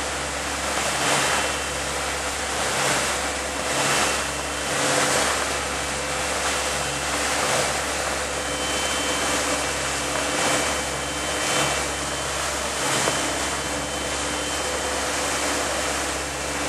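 Sportfishing boat under way in choppy seas: the steady drone of its engines under the rush of the churning wake and wind, swelling and easing every second or so.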